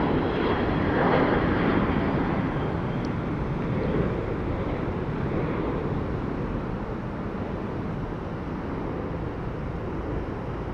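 Jet engine noise of a departing Boeing 737-800 climbing away, its CFM56-7B turbofans heard as a broad rush that slowly fades.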